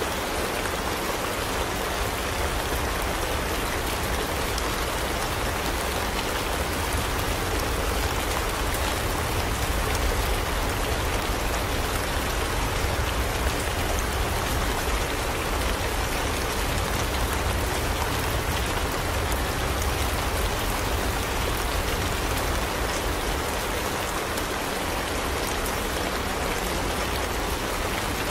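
Steady rain, a dense even hiss of many small drops hitting a surface.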